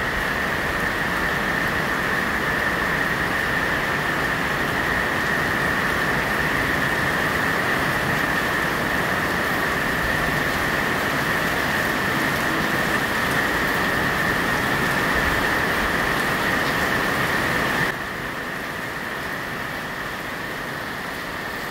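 Heavy rain pouring down: a steady hiss that drops a little in level about eighteen seconds in.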